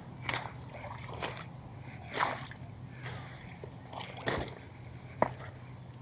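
A hand pushing through wet plants into shallow water, making about six brief splashes and rustles. The sharpest comes about five seconds in. A faint steady low hum runs underneath.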